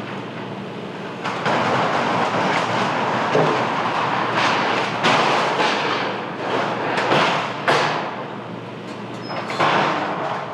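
Strong gusting wind with loose roof sheeting banging and clattering in it, several sharp bangs standing out over a constant rushing noise.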